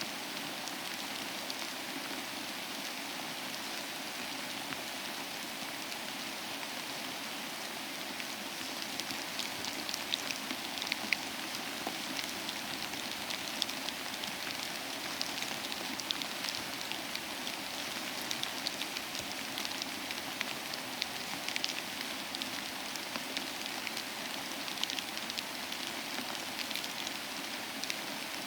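Steady rain falling and pattering on a surface, an even hiss with many individual drops ticking through it.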